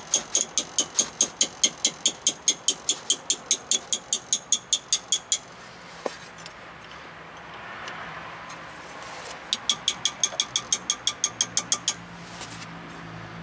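Rapid metal-on-metal tapping, about four strikes a second: a beaten-up socket extension striking a 10 mm wrench fitted on a rusted brake bleeder screw, the shock used to break the screw loose without snapping it. The tapping stops about five seconds in and starts again for a couple of seconds near the end.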